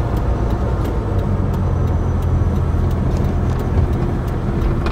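Car cabin noise while driving: a steady low rumble of engine and road, heard from inside the car.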